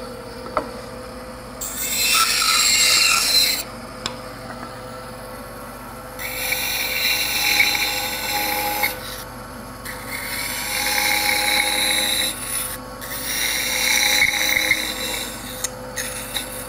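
Felt-tip marker drawing on a wooden board: several scratchy, squeaky rubbing strokes, each lasting a second or a few, with short pauses between them as the letter outlines are laid out.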